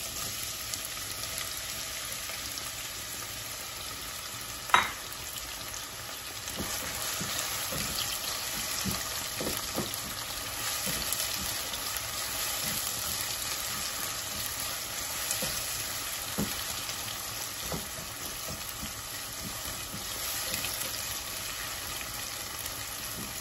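Sliced onions sizzling in hot olive oil on high heat, being fried to a light brown while a silicone spatula stirs them with faint scrapes and taps. One sharp knock about five seconds in.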